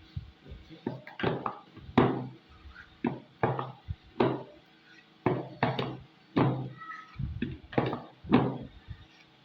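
A utensil stirring and scraping thick cream in a container, making a run of short knocks and scrapes at an irregular pace of about one and a half a second.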